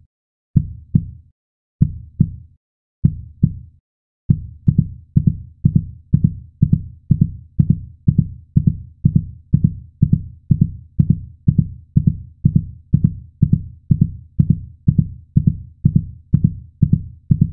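Heartbeat sound effect: low, dull thumps in slow lub-dub pairs, quickening after about four seconds into a fast, steady pulse of about two and a half beats a second.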